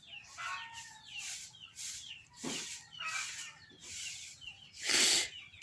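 Short chirping bird calls repeating about twice a second, then a loud, breathy burst of air about five seconds in: a person's false-start sneeze.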